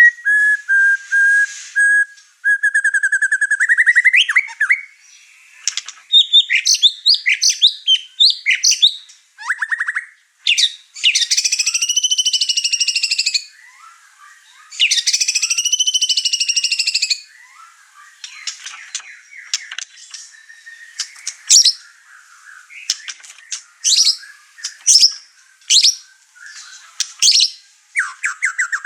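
White-rumped shama (murai batu) in full, over-excited song, running through its repertoire of learned phrases: clear whistles and quick trills, two long buzzy phrases near the middle, then a string of short sharp notes.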